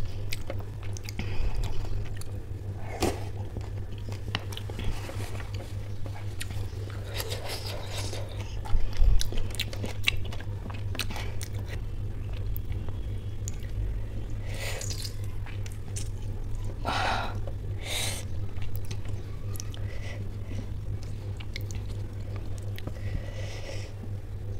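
Close-miked mouth sounds of eating samosa chaat with ghugni: chewing and biting, with many short scattered clicks and a few crunches. A steady low hum runs underneath.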